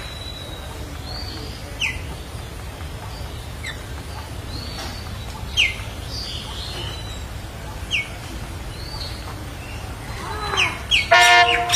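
Birds calling: a short falling whistle repeats about every two seconds over a steady low rumble. Near the end comes a louder, harsher squawking call.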